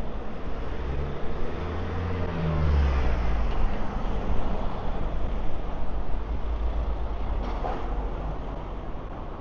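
Road traffic: a motor vehicle's engine rumbling close by, loudest in the first few seconds with a brief rise in pitch, over steady city street noise.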